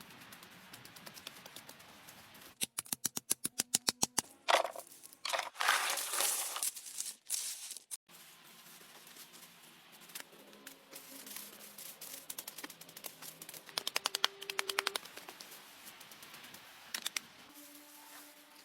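Rapid runs of sharp clicks or knocks, about eight a second, in several short bursts, with louder rustling or scraping noise a few seconds in.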